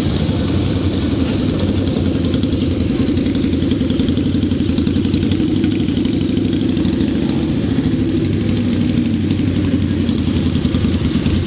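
Cruiser motorcycle engines idling and moving slowly, a steady low pulsing engine sound.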